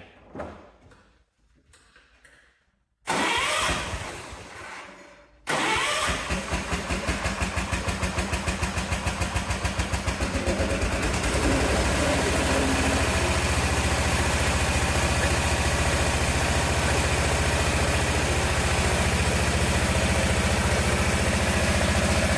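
Cub Cadet 1650 garden tractor's 16 hp single-cylinder Kohler engine being started: the starter cranks for about two seconds from roughly three seconds in, then the engine catches. It runs with an uneven pulse at first and settles into a steady run a few seconds later.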